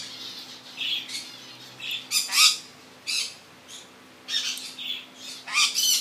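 Yellow-headed amazon parrot giving a string of short, harsh squawks and chattering calls, about half a dozen, the loudest a little over two seconds in.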